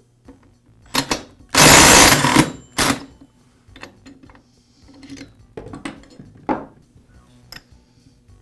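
Cordless impact driver hammering on a chainsaw clutch to break it loose: a short burst, then about a second of loud rapid hammering and another short burst. The compression in the cylinder holds the crankshaft, so no piston stop is needed. Light metallic clicks and rattles follow as the loosened clutch is spun off by hand.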